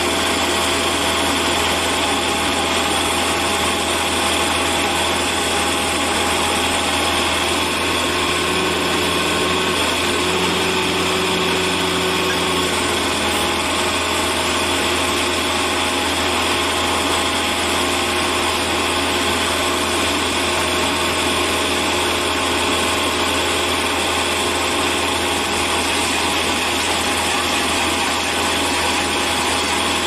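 Steady, unchanging drone of a working machine's engine, with a few faint steady hums over it and no distinct impacts or grinding bursts.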